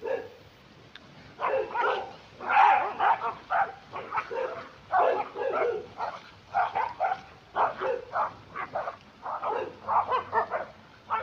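A pack of dogs barking, a rapid run of barks starting about a second and a half in and going on with short gaps.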